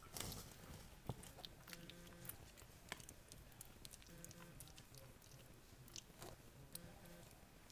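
Near silence with faint, scattered small clicks and soft rustles as a tiny Havanese puppy is held and turned in a hand.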